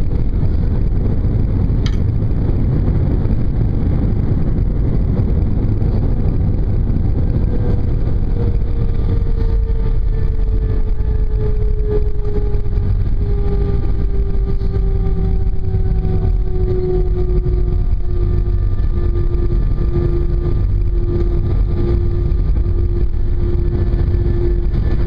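Airbus A320 cabin noise after touchdown: a steady low rumble from the engines and the wheels rolling on the runway, with an engine tone slowly falling in pitch as the aircraft slows. A single short click about two seconds in.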